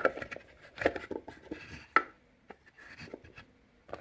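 Handling noises from a small hand-made box: a few light knocks and clicks with soft rubbing as things are set into it. The sharpest click comes about two seconds in.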